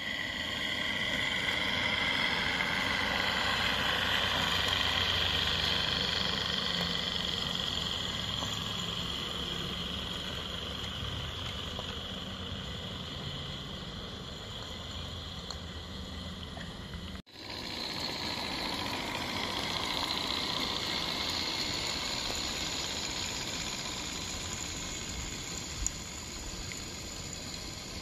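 Regner Class A Climax live-steam garden-railway locomotive and its log train running along the track: a steady hiss with rolling wheel rumble. The sound drops out abruptly about two-thirds of the way through, then comes back.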